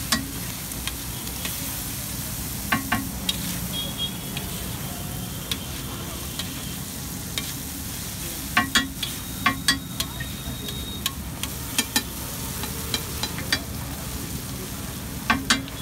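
Eggs and masala sizzling on a large flat griddle while a metal spatula chops and stirs them. Sharp clacks of the spatula striking the griddle come every few seconds, several in quick pairs.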